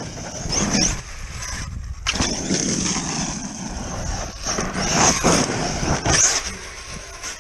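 Large 8S electric RC trucks running hard: brushless motors whining in several surges, with rough tyre-on-ground noise.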